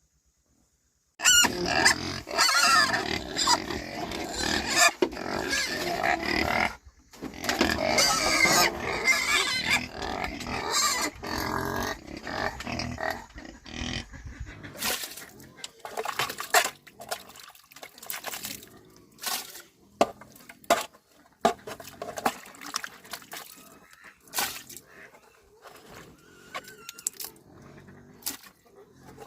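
Animal calls, loud and continuous with wavering pitch, starting about a second in and lasting until roughly halfway through. A run of separate sharp knocks and clicks follows.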